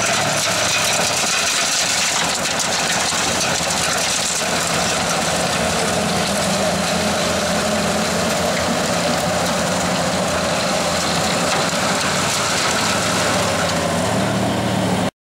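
Bobcat skid steer's diesel engine running steadily under load, driving a TEAMCO Snowblast 6600AR snowblower attachment, with a dense rushing hiss from the blower throwing snow. The sound cuts off abruptly near the end.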